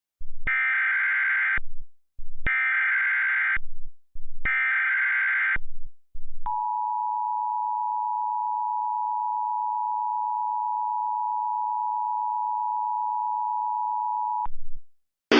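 Emergency Alert System header: three bursts of warbling SAME data tones, each about a second long and about a second apart, followed by the steady two-tone EAS attention signal held for about eight seconds. It announces a tornado warning.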